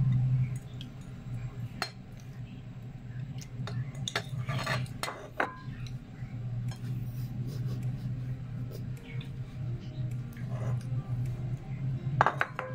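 A metal fork clinking and scraping against a white bowl during eating, a few sharp clinks scattered through with a cluster in the middle, over a steady low hum.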